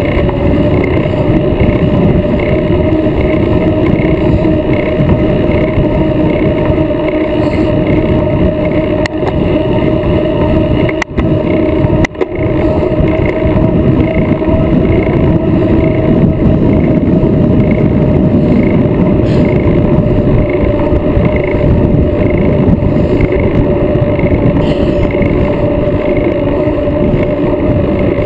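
Steady rush of wind and road noise on the microphone of a camera mounted on a moving bicycle at racing speed, with a constant low hum underneath. The sound drops out briefly twice, about eleven and twelve seconds in.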